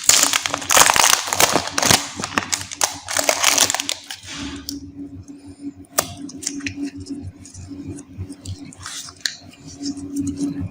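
Plastic candy wrappers crinkling and tearing for about four seconds, then quieter scattered rustles and small clicks over a low steady hum.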